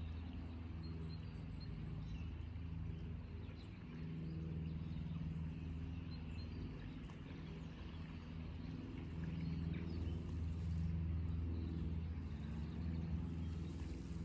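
Low, steady engine drone with a hum that swells and fades over a few seconds, with a few faint bird chirps over it.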